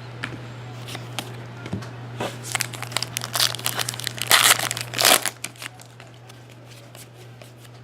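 Plastic wrapper of a hockey trading card pack being torn open and crinkled: a dense run of crackling rustles for about three seconds, loudest near the end, then a few light clicks.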